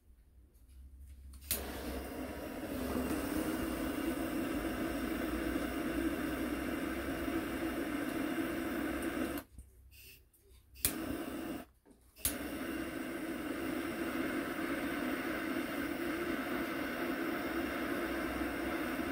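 Handheld gas torch clicked alight about a second and a half in, its flame then hissing steadily as it heats a brass fitting on a fuel tank for soldering. Near the middle the flame goes out for about three seconds; two more ignition clicks follow and the steady hiss picks up again.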